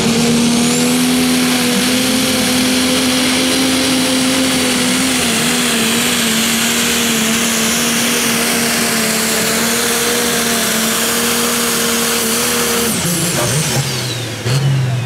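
International Harvester Pro Stock pulling tractor's turbocharged diesel engine running flat out at a steady high pitch through a full pull, with a rising whistle in the first second. The engine cuts off suddenly about 13 seconds in as the pull ends.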